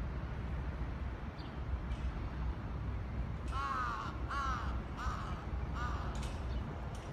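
A crow cawing four times in quick succession, starting about halfway in, over a steady low rumble.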